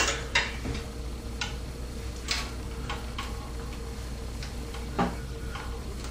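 Scattered light clicks and taps of small computer cooler parts being handled and fitted, about half a dozen at uneven intervals, the sharpest right at the start.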